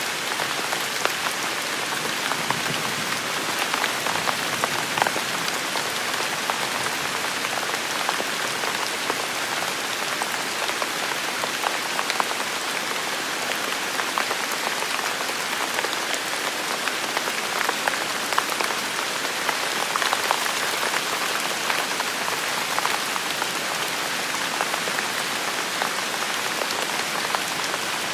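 Steady rain falling on a surface, an even hiss speckled with the taps of individual drops.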